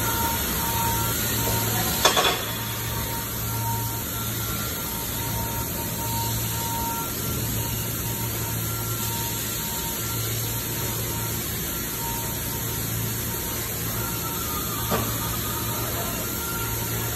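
Steady hissing and humming shop noise of a metal-fabrication floor, with one sharp metal clank about two seconds in and a lighter knock near the end, as steel pipe parts are handled on a steel worktable.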